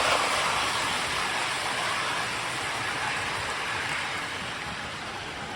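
Toy electric train running on the layout: a steady hissing rumble with no clear chuff rhythm, gradually getting quieter.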